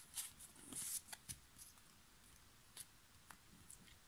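Quiet handling of a stack of Pokémon trading cards: a brief sliding rustle about a second in and a few light card clicks, otherwise near silence.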